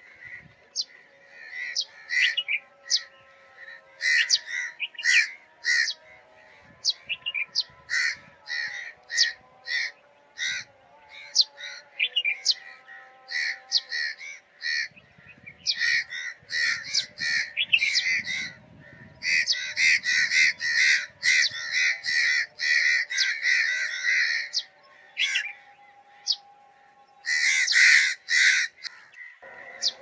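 Sparrows chirping: short, sharp chirps one after another, breaking into fast chattering runs in the second half.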